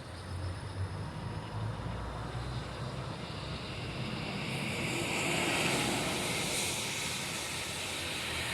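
Road traffic on a wet street: a vehicle engine's low rumble, then the hiss of tyres on wet asphalt swelling about halfway through as a vehicle passes.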